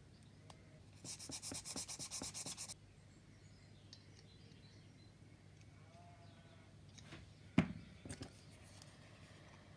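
A hobby knife blade scraping rapidly along the edge of a plastic model-kit part for about two seconds, shaving it clean. Later comes one sharp tap, followed by a couple of lighter knocks.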